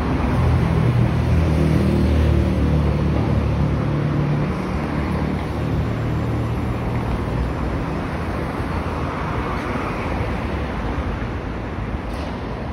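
City street traffic: a motor vehicle's engine passes close by, loudest in the first few seconds and fading after about five seconds, over a steady wash of traffic noise.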